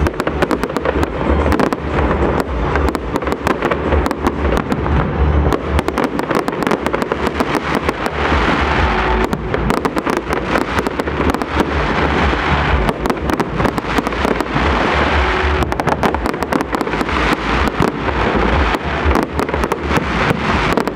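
Fireworks display: a dense, unbroken barrage of aerial shell bursts, many bangs a second, loud throughout.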